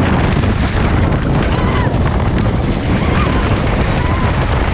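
Wooden roller coaster in motion, heard from a rider's camera: a steady rumble of the train running on the track, with wind buffeting the microphone.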